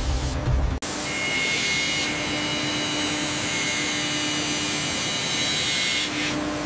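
CNC milling machine spindle running and cutting metal: a steady high whine over a hiss. Background music breaks off abruptly just under a second in.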